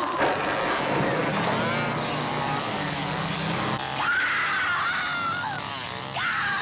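A woman screaming in long, high, wavering cries over the steady running of an engine.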